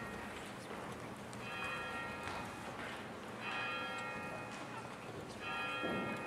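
Faint bell-like chime struck about every two seconds, each stroke a chord of ringing tones that dies away after about a second, with a lower sound swelling in near the end.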